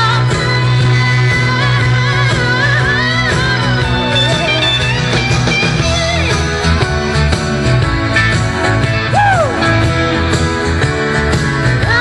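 A young woman singing live into a handheld microphone over backing music, her voice gliding and bending, with one sharp downward slide about nine seconds in.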